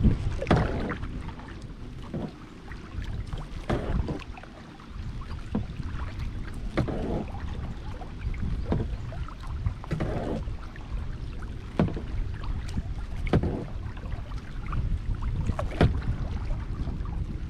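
Kayak paddle blades dipping and pulling through lake water, a splashy stroke about every one and a half seconds, over a steady low rumble of wind on the microphone.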